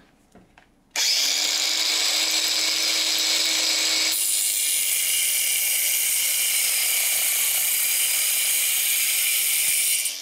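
Angle grinder fitted with a Diablo carbide-toothed saw blade, made for radial arm saws, starting up about a second in and sawing through aluminum: a loud, steady high-pitched cutting noise lasting about nine seconds. A low hum under it stops about four seconds in, and the sound drops away right at the end as the cut finishes.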